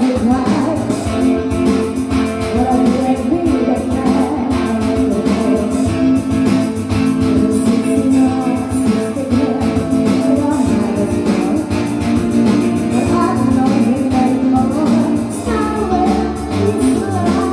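Music: a pop song sung with guitar accompaniment.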